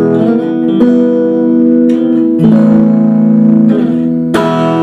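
Aria STG series electric guitar on its neck-and-middle pickup setting with the tone controls full up, strumming chords that ring on. New chords are struck just under a second in, again about halfway through, and again near the end.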